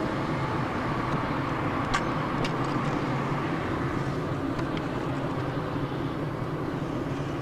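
Car driving, with steady road and engine noise and a couple of faint clicks about two seconds in.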